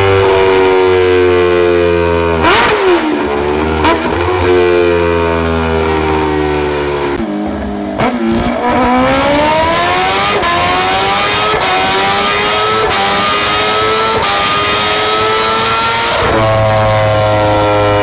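Kawasaki Ninja H2R's supercharged inline-four engine revving hard on a motorcycle dynamometer. It is held high with two sharp blips, drops briefly about seven seconds in, then climbs steadily in pitch for several seconds as it is pulled up through the revs, and settles high near the end.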